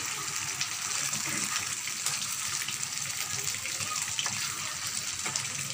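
Raw chicken pieces sizzling in hot spiced masala in a pan as they are stirred in with a wooden spatula: a steady hiss with a few light scrapes and clicks of the spatula.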